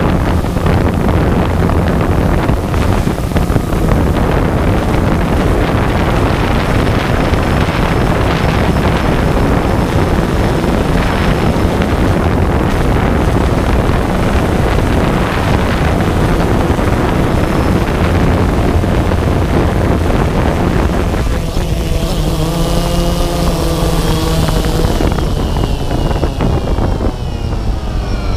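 Multirotor drone's propellers running, with wind rushing over the onboard camera's microphone. About three-quarters through, after the drone sets down on the cobblestones, a wavering motor hum comes through, and near the end its pitch falls as the rotors slow: the drone has come down with its battery run flat.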